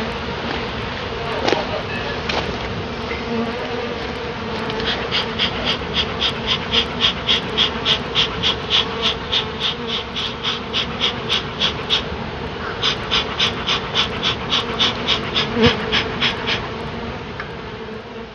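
A honey bee colony buzzing, a steady drone of many bees. Over it, through the middle, come two runs of a rhythmic high pulsing sound, about three or four pulses a second.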